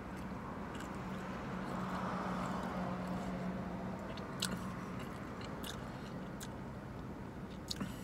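A person chewing a mouthful of burger with a few short clicks and smacks, over a steady low hum.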